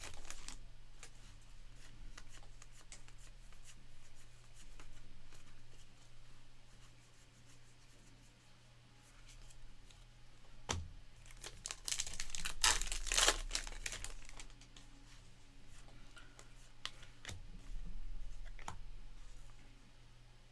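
Foil card-pack wrappers crinkling and tearing as trading-card packs are opened, with light clicks of cards being handled. The loudest crinkling comes from about 12 to 14 seconds in.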